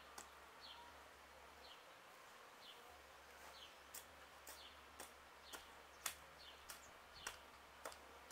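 Near silence in an outdoor yard, with a bird chirping faintly over and over in short, high, falling notes, and a few faint clicks.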